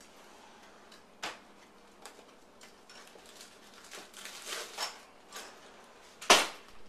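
Scattered clicks and rustles of plastic freezer bags being handled and pressed shut, with a cluster of rustling about four seconds in and one sharper, louder click near the end.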